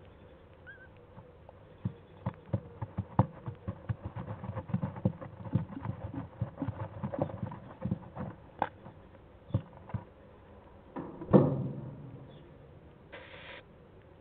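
Owl chick scrabbling and shuffling on wood shavings in a wooden nest box: a run of quick scratches and light knocks, with one louder rustle near the end.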